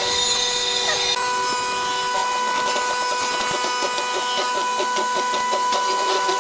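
Chisel mortising machine running with a steady motor whine while its hollow chisel is plunged again and again into a timber beam, giving a run of short, repeated cutting strokes.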